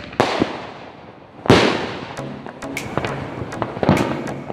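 Aerial fireworks bursting: three loud bangs, one just after the start, one about a second and a half in and one near the end, each trailing off, with smaller sharp crackles between the second and third.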